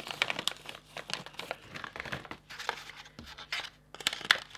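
Plastic dog-treat pouch crinkling as treats are tipped out of it into a small card box, with scattered small clicks.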